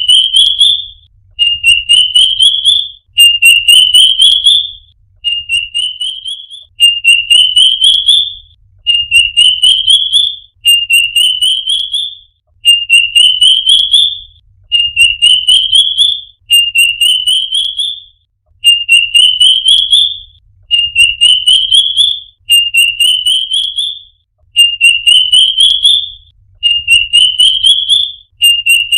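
A bird singing one short rising trill over and over: each phrase is a fast run of high notes climbing in pitch, about a second and a half long, repeated every two seconds or so with very even timing.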